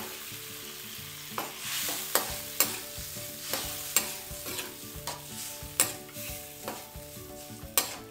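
A metal spoon stirring a soupy mix of sardines, onions and potatoes in a metal pot, knocking and scraping against the pot about once or twice a second. Under it, the soy sauce and freshly added water sizzle and hiss in the hot oil.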